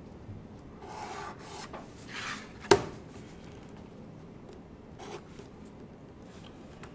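A plastic drafting triangle scraping and sliding over drawing paper as it is repositioned, with a sharp click a little under three seconds in as it is set down. A short marker stroke scratches along its edge about five seconds in.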